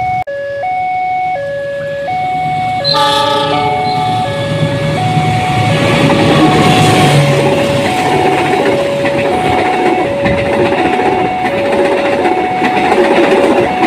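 Railroad crossing warning signal sounding two alternating tones, with a short train horn blast about three seconds in. The rumble and clatter of a passing train then builds up and continues under the signal.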